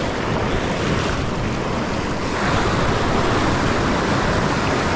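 Sea surf breaking and washing over shoreline rocks, a steady rushing that swells louder about halfway through.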